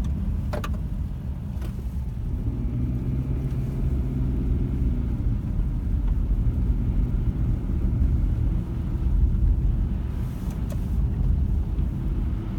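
Steady low rumble of a car in motion, engine hum and road noise with a faint even drone.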